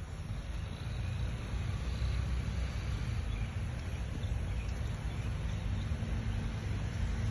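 Steady low outdoor rumble with a fainter even hiss above it, no distinct events.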